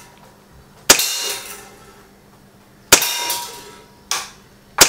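Hellraiser M CO2 blowback BB pistol, a Makarov replica, firing semi-auto. Three sharp shots come about two seconds apart, with a quieter crack between the last two, and each trails off in a short metallic ring.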